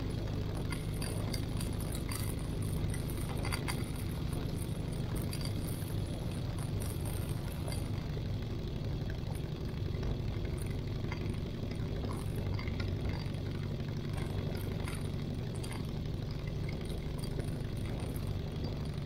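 Minimax 1100R ultralight's engine and propeller running steadily at taxi power, a low even hum with no rev-up, with scattered light ticks and rattles over it.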